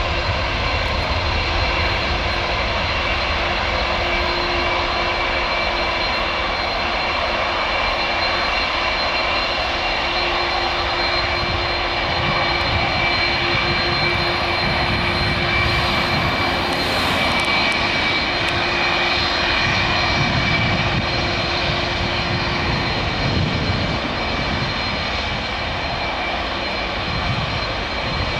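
Twin turbofan engines of an Airbus A320-family airliner at take-off thrust during the take-off roll, lift-off and climb-out: a steady jet roar with a high whine and a lower hum, easing slightly near the end.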